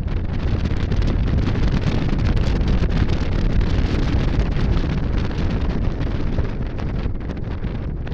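Wind rushing over the microphone of a riding cruiser motorcycle, with the motorcycle's engine running underneath, easing a little in the last few seconds.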